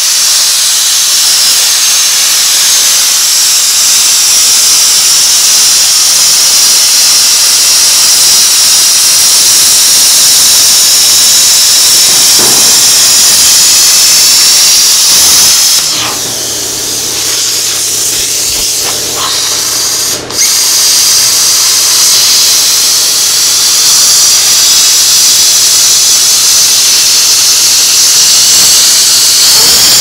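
A power cutting tool running continuously as it cuts through sheet metal, a loud steady hiss. It eases off briefly about halfway through and cuts out for an instant a few seconds later before carrying on.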